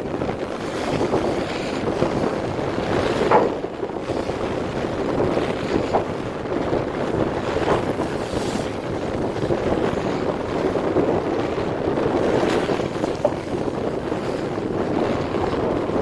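Wind buffeting the microphone over the rush of sea water washing along a ship's hull at the bow, with a few faint knocks.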